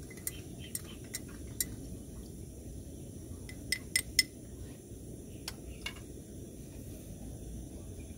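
Metal teaspoon clinking against a glass coffee mug while stirring coffee: light clinks at about two a second, then a few sharper, louder ones around four seconds in, and two fainter ones a little later.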